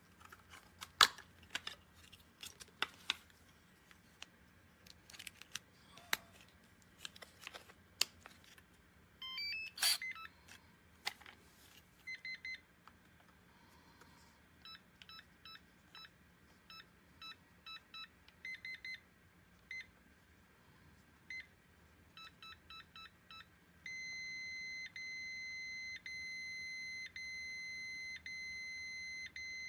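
Clicks and knocks of handling, then short electronic beeps in quick runs, like keypad button presses on a Kwikset SmartCode 917 electronic keypad lock. About three-quarters of the way in, a steady high beep starts and runs on, broken by brief gaps about once a second.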